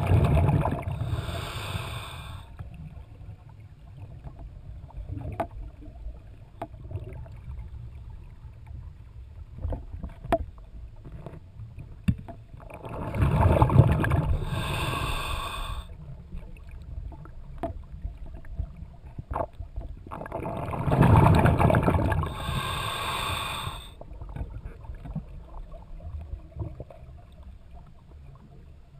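Scuba diver breathing through a regulator underwater: three breaths, near the start, about 13 seconds in and about 21 seconds in, each a rush of bubbling and hiss, with a low rumble and faint clicks in between.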